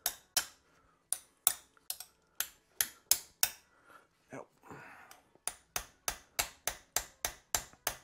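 Hammer tapping an Allen key to seat it in a stuck bolt on a BMW K100 gearbox casing: two runs of sharp metal-on-metal taps, about three a second, with a short pause in the middle.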